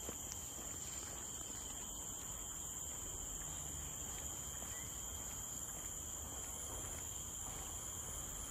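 Insects droning in a steady, shrill, unbroken chorus, with a strong high tone and a fainter lower one.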